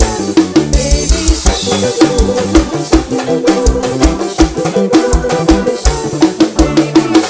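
Background music: an instrumental stretch of an upbeat children's dance song, with a steady kick-drum and snare beat under a stepping bass line.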